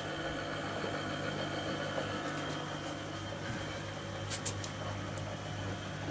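Samsung S1043 washing machine running with a steady motor hum, on a test run after its control panel was replaced. A few quick sharp clicks come about four and a half seconds in.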